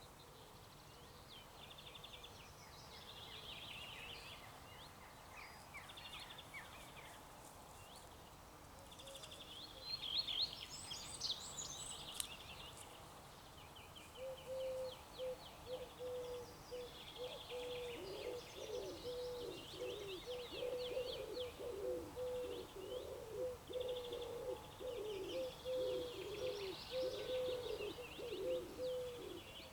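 Several small songbirds singing and chirping with high, quick trills. From about halfway through, a lower-pitched call joins, repeated rapidly with falling notes.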